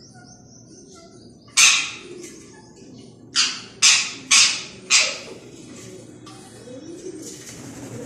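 Rose-ringed parakeets giving loud, harsh screeches: one about a second and a half in, then a quick run of four about half a second apart.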